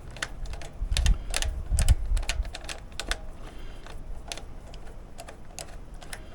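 Irregular light clicks and taps of small metal carburetor parts and tools being handled during reassembly, with two louder low bumps about one and two seconds in.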